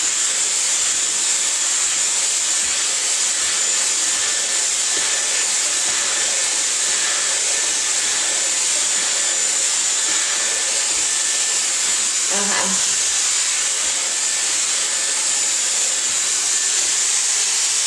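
Dyson hot-air styling brush running steadily as it smooths hair: a constant rush of air with a thin, high motor whine.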